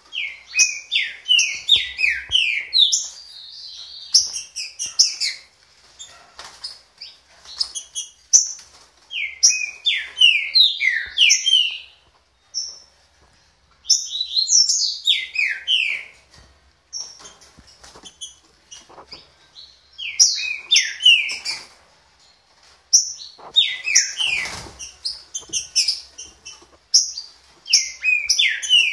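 Green-winged saltator (trinca-ferro) singing: bursts of quick, clear, downward-slurred whistled notes, each phrase lasting a couple of seconds, repeated after short pauses.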